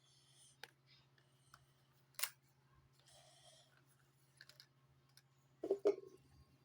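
Faint handling noises: scattered light clicks and taps, with one sharp click about two seconds in and a brief louder rustle-like burst near the end, over a faint steady hum.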